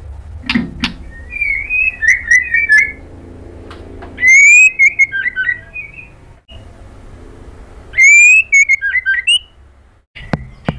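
White-rumped shama singing in separate phrases. Each phrase opens with a clear rising whistle and breaks into quick varied chirps. The loudest phrases come about four and eight seconds in, with pauses between them.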